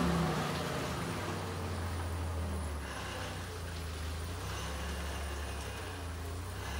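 Hyster forklift's engine running with a low, steady rumble as the forklift is driven and positioned; a bit louder in the first second, then even.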